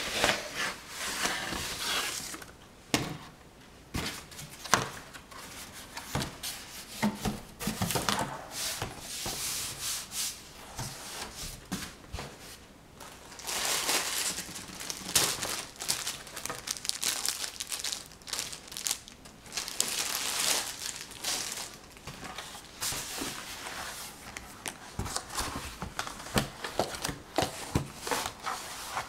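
Crinkly material being handled and crumpled close to the microphone, in irregular spells of rustling with scattered taps and clicks between them.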